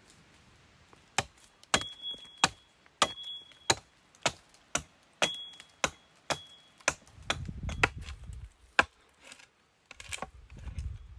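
Axe blows chopping notches into a wooden log, roughly two sharp strikes a second, some with a short metallic ring from the blade.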